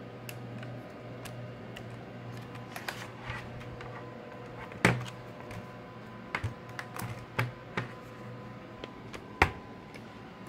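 Plastic clicks and knocks of a Dell Latitude D830 laptop being handled: the battery pushed into its bay, the machine turned over onto the desk and its lid opened. There are sharp knocks about five seconds in and again near the end, and a run of smaller clicks in between.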